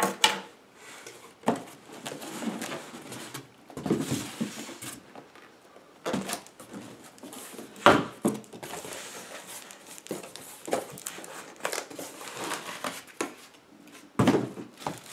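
Cardboard boxes being handled and opened: flaps rustling and scraping, with irregular knocks as boxes and packing are set down and moved about; the sharpest knock comes about halfway through.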